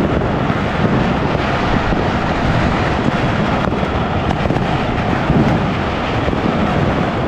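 Continuous rumbling din of many fireworks and firecrackers going off all over the city at once, blending into one steady roar with a few sharper bangs standing out.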